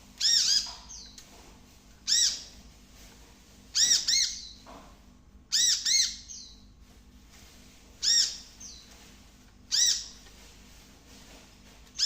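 A bird call repeated about every two seconds, each call a quick pair of high, arching, harsh notes. It is played as a lure for a kept bird to imitate.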